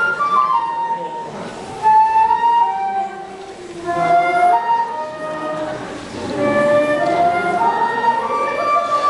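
Concert flute playing a melody in phrases of moving and held notes.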